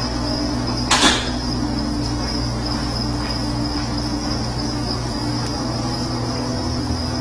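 Steady background hum with a constant high-pitched whine, and one sharp click about a second in.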